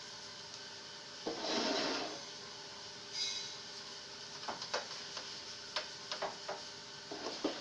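Scattered light clicks and knocks of tools being handled during car body repair work. There are two short noisy rushes early on and a steady low hum underneath.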